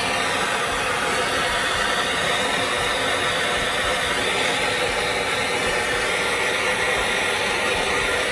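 Propane kitchen torch burning with a steady hiss of gas and flame, played over sugar-topped cookies to melt and caramelize the sugar.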